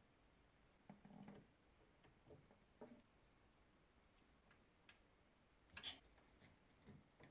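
Faint scattered clicks and knocks of hands handling a filament Y-splitter with brass push-fit fittings, plugging it onto a 3D printer's filament inlet and bringing a PTFE tube to it. The loudest click comes about six seconds in.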